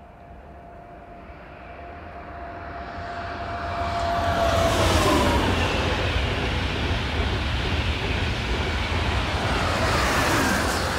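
Frecciarossa high-speed electric train approaching and rushing past at speed, growing from faint to loud. A steady whine drops in pitch as the front passes about five seconds in, then a rushing wheel-and-air noise runs on, with a second drop in pitch near the end as the rear of the train goes by.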